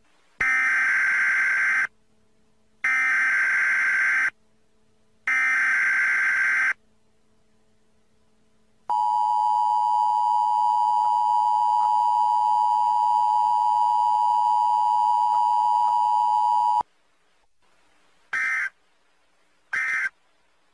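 US Emergency Alert System broadcast tones for an AMBER alert: three buzzing data bursts of about a second and a half each, then the steady two-tone attention signal held for about eight seconds, then two short end-of-message bursts near the end.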